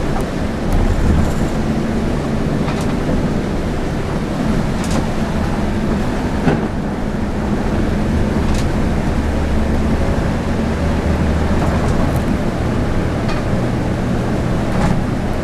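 Bus engine and tyre noise heard from inside the cab, running steadily along a rain-wet road, with a few sharp clicks or knocks scattered through it.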